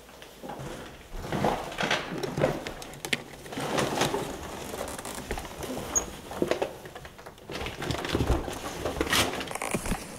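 Irregular rustling, crunching and knocking of piled rubbish and plastic bags, and of a jacket scraping against a door edge, as a person squeezes through a jammed door gap and steps over the rubbish.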